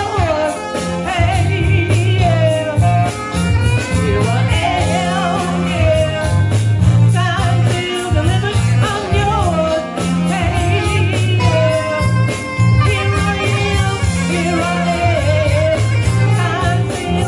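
A woman singing a soul tune into a microphone over backing music with a steady bass line and a regular drum beat.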